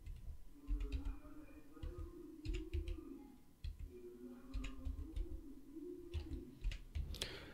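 Faint, scattered clicks of a computer keyboard and mouse, roughly one a second, with soft low thumps under some of them.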